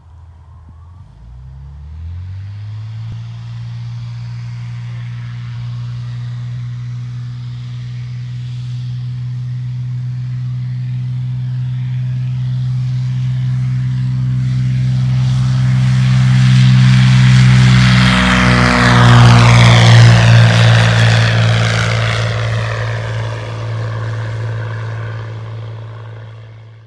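Cessna 182's piston engine and propeller opening up to take-off power about a second in, then a steady drone that grows louder as the plane runs down the strip and lifts off. It drops a little in pitch as it passes closest, fades as it climbs away, and cuts off suddenly at the end.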